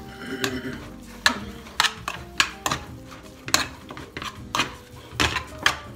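A metal utensil knocking and scraping against the side of an aluminium pot while raw ground beef is stirred and broken up, about two knocks a second.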